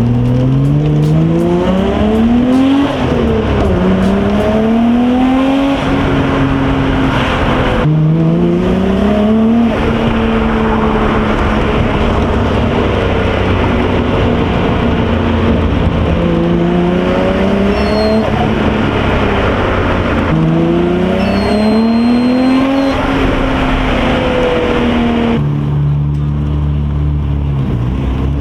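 Nissan Skyline R32 GT-R's RB26 twin-turbo straight-six accelerating hard, the revs climbing and dropping back again and again as it shifts up through the gears.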